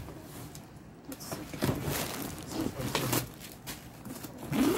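Intermittent rustling and handling noise as a Michael Kors monogram backpack is lifted out of a paper shopping bag and turned about, with a few sharp clicks.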